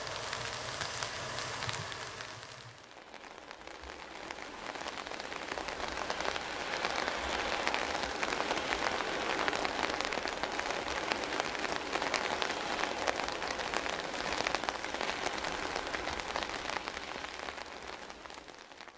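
Steady rain pattering, a dense crackling hiss that dips briefly about three seconds in and then builds again.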